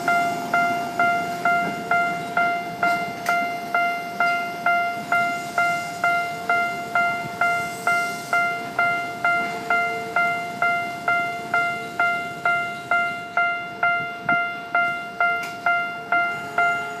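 Japanese railway level-crossing warning bell ringing in a steady, even rhythm of nearly three strikes a second, stopping near the end.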